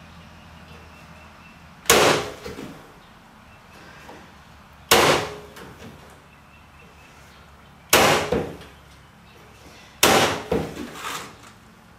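PowerShot Pro corded electric staple gun firing four staples about three seconds apart, each shot a sharp snap with a brief rattle, driving staples through chicken wire into a wooden frame. A few small clicks follow the last shot.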